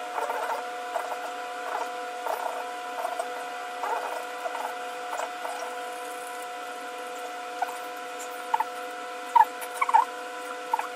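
Light metallic clicks and scrapes of hand tools and parts being worked inside the open cast-iron crankcase of a John Deere Type E hit-and-miss engine during disassembly, over a steady electrical hum. The clicks come every second or so, with a few sharper ones near the end.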